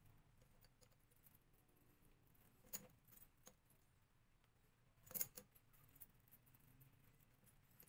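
Faint clinks of small metal chainmail rings knocking against each other as the mail is handled and linked, with a few separate clicks and the loudest just past halfway.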